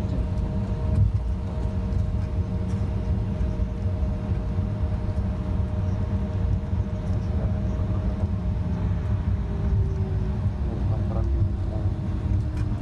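Steady low rumble and hum of a jet airliner's engines heard from inside the cabin while it taxis. A slowly falling tone joins about ten seconds in.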